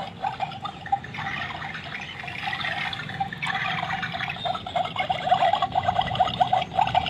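Battery-powered toy electric kettle running after its button is pressed, giving a steady bubbling, boiling-water sound made of rapid little pops and crackles: the toy's pretend heating cycle.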